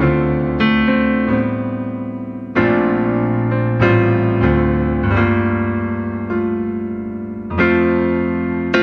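Background piano music: slow chords struck roughly once a second, each ringing and fading before the next.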